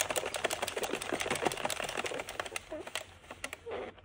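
Addi King circular knitting machine being hand-cranked: a rapid, even clatter of its plastic needles clicking round the ring, thinning out and stopping about three seconds in.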